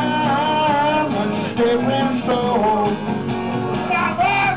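Solo acoustic rock performance: a man sings long, held, wavering notes over a strummed acoustic guitar.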